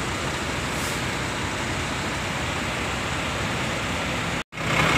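Steady vehicle noise of a bus terminal: an even rumble and hiss from the buses standing in their bays. It drops out for a split second near the end, and after that a low engine hum is stronger.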